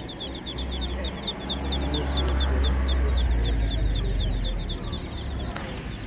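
Young poultry chicks peeping: a fast, even run of short, high, downward-sliding peeps, several a second, over a low rumble that swells in the middle and eases near the end.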